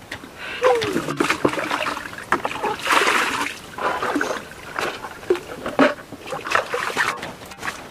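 Water splashing and sloshing in uneven bursts as a bucket is dipped and filled at the edge of a creek.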